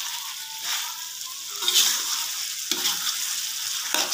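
Metal spatula stirring and scraping a thick shrimp curry with green beans and corn around a metal wok, one scrape about every second, over the steady sizzle of the reduced sauce cooking.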